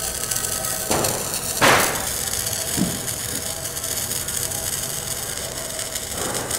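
Handheld red sparkler (coloured fire stick) burning with a steady hiss. Two sharp cracks fall within the first two seconds, the second one louder.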